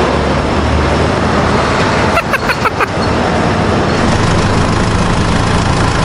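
A machine running steadily with a dense, even mechanical noise, with a quick run of five or six short squeaky chirps about two seconds in.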